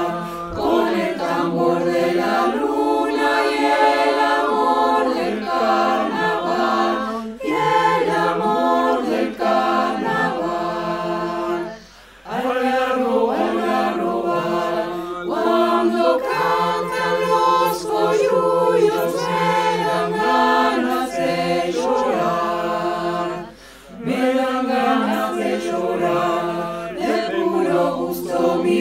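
Mixed-voice choir of men and women singing a traditional Argentine vidala a cappella in several-part harmony. Sustained sung phrases, with short breaks about twelve and twenty-three seconds in.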